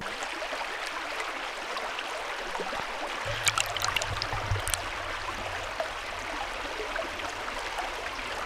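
Steady rush of flowing stream water, with a few brief sharp clicks about halfway through.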